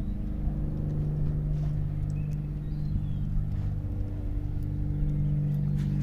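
An engine running steadily, a low even hum.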